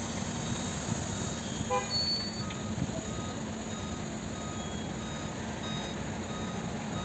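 Diesel earthmoving machinery running steadily, led by a Cat 324D excavator working a load of earth over a dump truck. A faint beep repeats about one and a half times a second from about two seconds in, and there is a short toot just before that.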